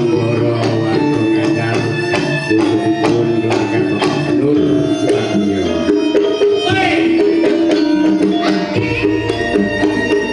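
Live Javanese gamelan music in campursari style: steady pitched metallophone and gong tones under regular hand-drum (kendang) strikes.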